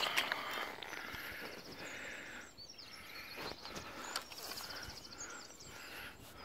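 Outdoor ambience with faint bird trills repeating every second or two, and a few soft knocks and rustles.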